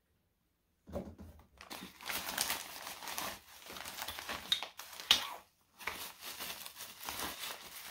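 Crinkling and rustling of packaging and the tripod's fabric carry bag being handled, starting about a second in, in irregular scrapes and crackles with a sharper rustle about five seconds in.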